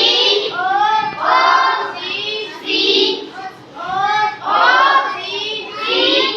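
Children singing, high young voices in short phrases.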